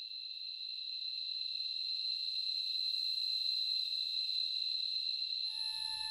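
Steady, high-pitched chirring of crickets, growing slightly louder. Near the end, a held musical note with a low rumble under it comes in.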